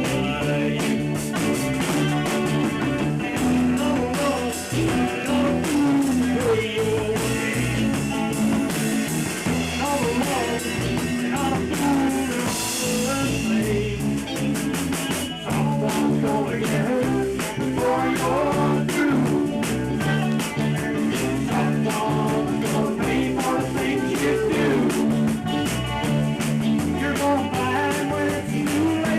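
An amateur rock band playing live at rehearsal: drum kit, electric guitar and bass, playing without a break.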